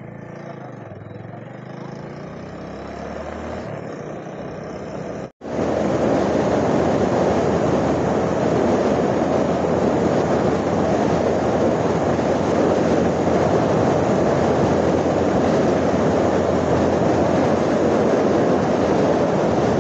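Motorcycle riding at speed, heard from the rider's seat: engine and road noise at first, then after a sudden cut about five seconds in, loud steady wind noise on the microphone over the running bike.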